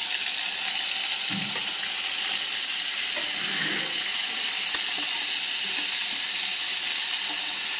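Marinated chicken sizzling in hot oil in a steel kadai as the pieces are slid in from a bowl: a steady frying hiss, with a couple of soft knocks of pieces dropping into the pan about a second in and midway.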